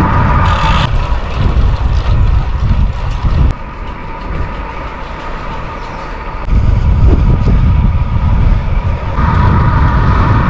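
Road bike on Hunt 50 carbon wheels on the move: wind buffeting the microphone with tyre and road rumble. A steady high ratchet buzz from the freewheel hub while coasting is heard at the start and again near the end. The rumble drops for a few seconds in the middle.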